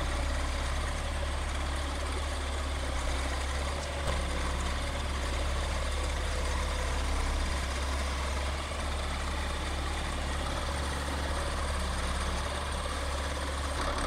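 Caterpillar D5 bulldozer's diesel engine running steadily, a deep even hum.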